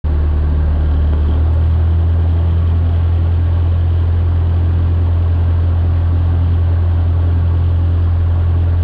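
Cessna 152's four-cylinder Lycoming engine and propeller running steadily as heard inside the cabin, a deep, even drone with no rise in power.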